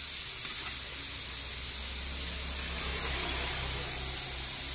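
Chicken pieces deep-frying in a large pot of oil, about ten minutes into frying: a dense, steady sizzle of bubbling oil.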